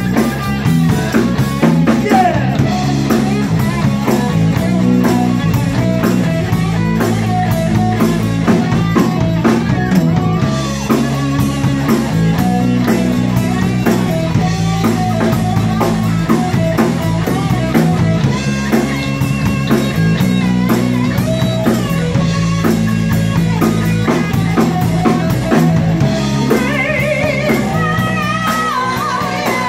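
Live rock band playing: electric guitar, electric bass and a Ludwig drum kit keeping a steady beat. A woman's singing voice comes in near the end.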